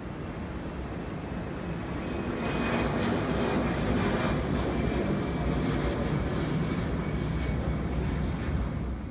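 Jet airliner engines heard from a distance as a steady rushing rumble with a faint high whine, swelling slightly after about two seconds.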